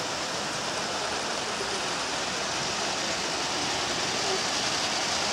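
G-scale model train rolling along its track with a steady rushing noise of wheels on rail.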